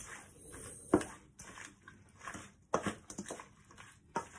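A spoon stirring marinated shrimp and sauce in a stainless-steel bowl: soft wet squelching broken by a few sharp knocks of the spoon against the bowl, the loudest about a second in.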